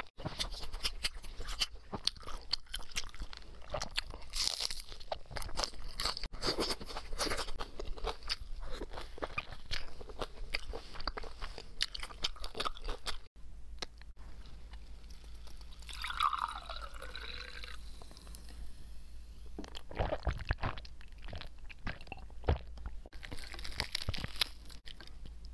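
Close-miked eating sounds: biting and chewing with many small wet clicks, first of a glossy braised pork piece, then, after a cut about halfway through, tearing and crunching into a crisp-skinned fried whole chicken. A short falling tone comes about two-thirds of the way through.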